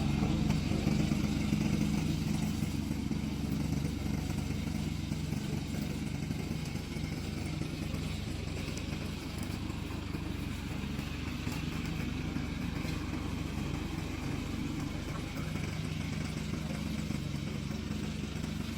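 Engine of a remote-controlled tracked slope mower running steadily, growing slowly quieter.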